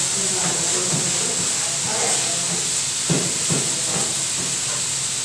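Chopped onions and red and green peppers sizzling in a stainless electric skillet with a steady hiss as they are stirred with a spatula, with a couple of short scrapes of the spatula against the pan a little past halfway.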